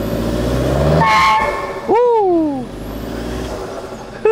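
Toyota Fortuner's 2.5-litre 2KD turbodiesel, with a modified exhaust, revved by a throttle blip: the note climbs for about a second, then drops back to idle. A short voice exclamation comes about two seconds in.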